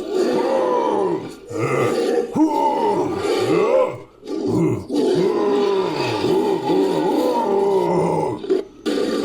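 Made-up creature calls: layered growls and roars mixed from a human voice and film and game monster sounds. They come as several long calls, each with overlapping voices rising and falling in pitch, with short breaks about one and a half, four and nine seconds in.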